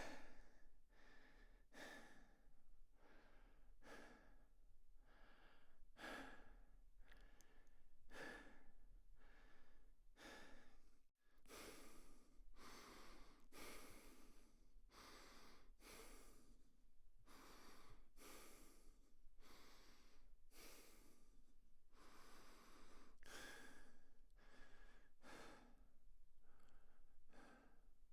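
A person breathing in and out, close up, one faint breath about every second. About eleven seconds in it breaks off briefly and a new run of breaths starts.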